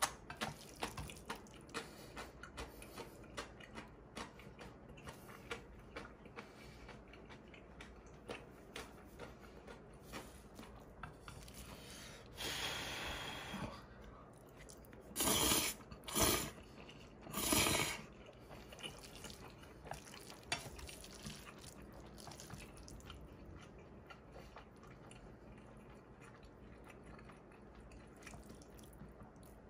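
Close-miked eating of black-bean instant noodles and cold soup: steady chewing with many small wet clicks, then three loud short slurps a little past halfway, followed by quieter chewing.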